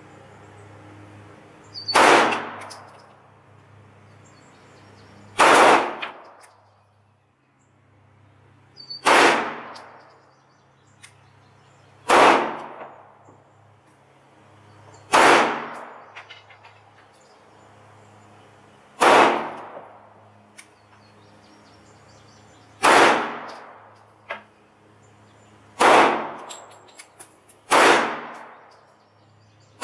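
Semi-automatic pistol fired in slow, aimed single shots, nine in all, about one every three to four seconds, each with a short ringing tail.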